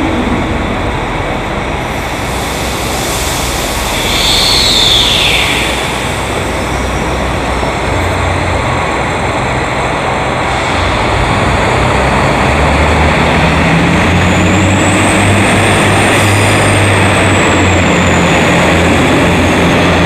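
Electric limited-express train pulling away: a steady rushing running noise with a whine that falls about four seconds in, a low hum that sets in about eight seconds in, and a high whine that rises and falls near the end.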